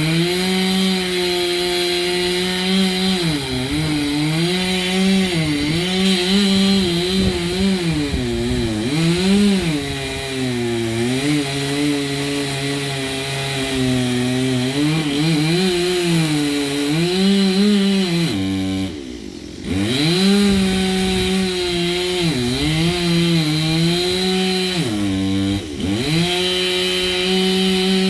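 Two-stroke chainsaw at high revs cutting wood, its pitch sagging as the chain bites and rising again as the cut eases. The saw is throttled down briefly about two-thirds of the way through, dips again near the end, and is revved back up each time.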